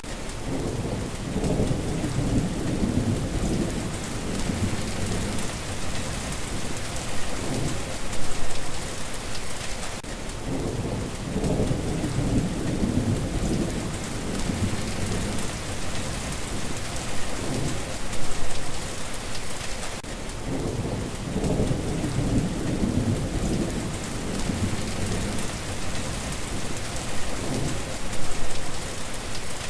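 Steady rain falling, with low rumbles of thunder that swell and fade and come back about every ten seconds.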